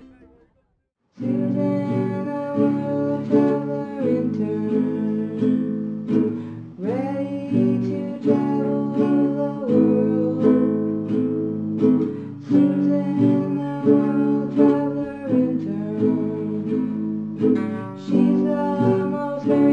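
Acoustic guitar strummed in steady chords, starting about a second in after a brief silence, with a wordless sung melody over it that holds long notes and slides up into some of them.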